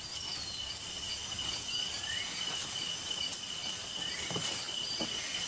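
Rainforest ambience: a steady high-pitched insect trill, with a few short chirps over it.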